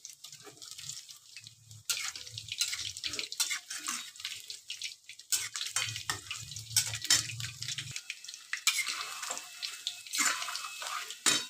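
Chicken pakoras deep-frying in hot oil in a wok: a hissing sizzle full of crackling pops, quieter at first and stronger from about two seconds in. A single sharp tap sounds near the end.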